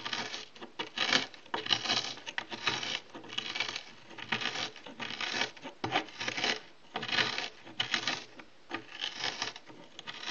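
Tablets being crushed and ground to powder in a small container with the end of a tool handle: a series of gritty scraping, grinding strokes, about one or two a second, slightly uneven.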